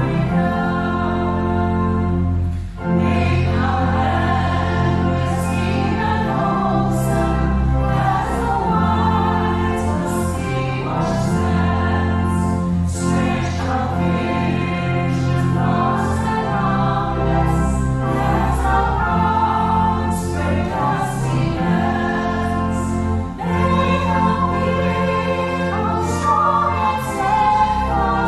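A choir and worship team singing a hymn in English.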